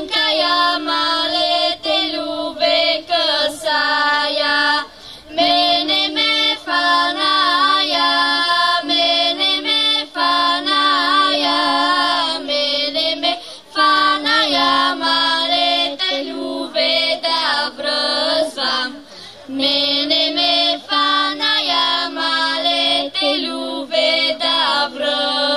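A children's folk singing group of girls singing a Bulgarian Pirin folk song, unaccompanied, in long phrases with short breaths between. One part holds a steady low note under the moving melody.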